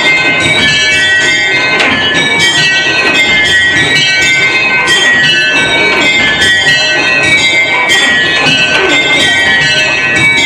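A mini-ring of very light tower bells (tenor 15 lb 6 oz) rung full-circle by hand in change ringing: six small, high-pitched bells struck one after another in a continuous, even rhythm, working through a method in Minor.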